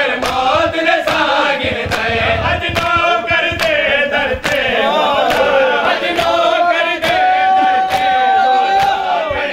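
Men chanting a noha together, with the sharp bare-hand slaps of matam chest-beating keeping a steady beat under the voices. About two-thirds of the way in, a voice holds one long note.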